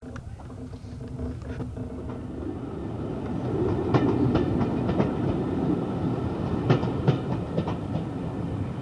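Passenger train running along the track, heard from an open carriage window: a steady rumble that grows louder over the first few seconds, with wheels clicking sharply over rail joints from about halfway through.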